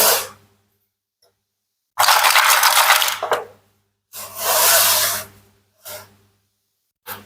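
Toy fruit being cut with a toy knife: two scraping, tearing noises about a second long each, the first ending in a sharp click, then two shorter ones near the end.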